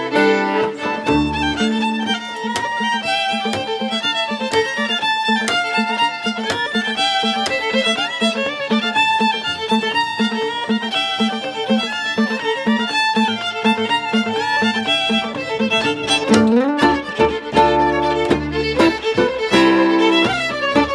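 Celtic fiddle tune played by two fiddles with acoustic guitar and double bass: a quick fiddle melody over a steady pulsing accompaniment. About two-thirds of the way through there is a rising slide, and deeper bass notes come in after it.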